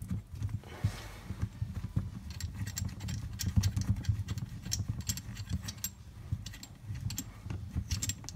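Small metallic clicks and scraping as steel nose parts are screwed by hand onto the front of a Gesipa cordless rivet gun, the clicks coming thicker from about three seconds in, over a low, uneven handling rumble.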